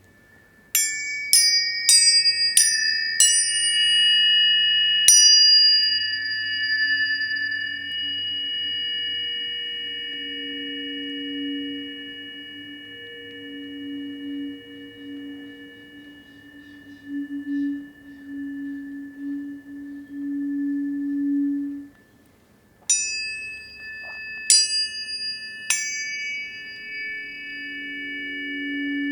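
Tuning forks struck in quick succession, each ringing on in clear, high, steady tones. About six strikes come in the first five seconds, a lower tone swells underneath through the middle and fades, and three more strikes come near the end.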